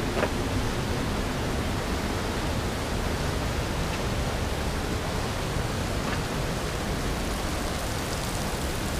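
Steady rushing of a creek running over the rock ledges of a narrow gorge, an even hiss with no breaks.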